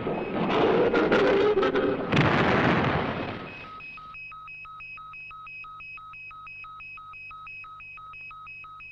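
Explosion and crash sound effects for about the first three seconds, then an Ultraman Color Timer warning beep: a fast, high electronic pinging about four times a second that signals the hero's energy is running low.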